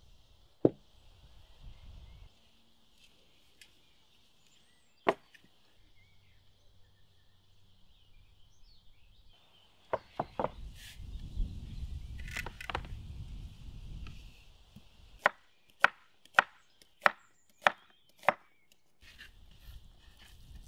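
Kitchen knife cutting an onion on a wooden cutting board: six sharp knocks, evenly spaced a little over half a second apart. Before them, a few knocks and a low rumble as the wooden board is set down and handled on the table.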